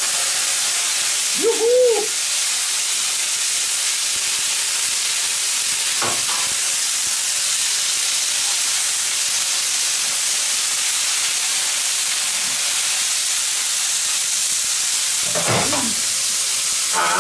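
Peeled prawns sizzling steadily in sesame oil on a hot steel griddle plate over a charcoal fire as they are spread around the plate.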